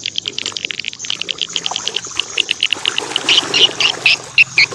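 Water pouring and trickling as a muddy toy is washed, with high chirping calls repeating several times a second that grow louder about three seconds in.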